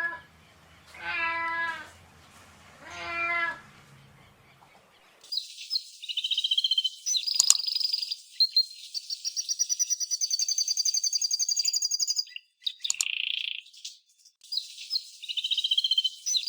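A cat meowing three times, each a short drawn-out call, followed about five seconds in by a small songbird singing high chirps and fast trills. The birdsong breaks off briefly near the middle and then starts again.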